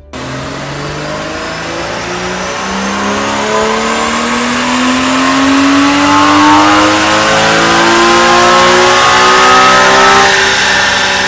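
Porsche 981 Cayman's 2.7-litre naturally aspirated flat-six at wide-open throttle on a chassis dyno, revving up steadily through one gear in a full power pull. The pitch starts to fall just before the end as the pull finishes.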